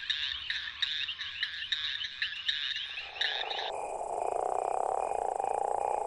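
A western leopard toad's mating call: a low, rapidly pulsing snore that starts about three seconds in and holds steady. It is preceded by a run of higher, repeated chirping calls.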